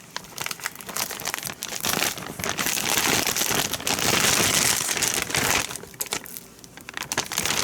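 Plastic bag crinkling and rustling continuously as it is handled and opened to take cut raw chicken, loudest in the middle.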